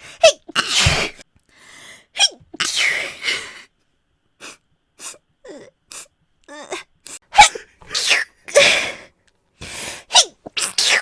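A woman sneezing over and over, a run of short, sudden sneezes with sharp intakes of breath between them. The loudest come in clusters near the start, around two to three seconds in, and in the last few seconds, with fainter ones in the middle.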